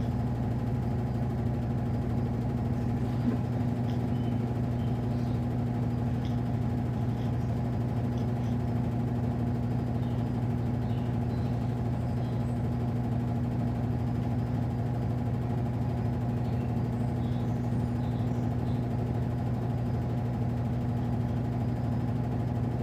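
Midea Wave-Agitator top-load washing machine's motor running at a steady speed with an even hum, as in its spin stage.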